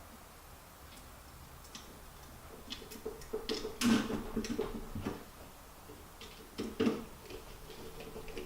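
Brush caps being put back on a vintage Milwaukee drill's brush holders: a scatter of light clicks and taps of small parts being handled, loudest about four seconds in and again about seven seconds in.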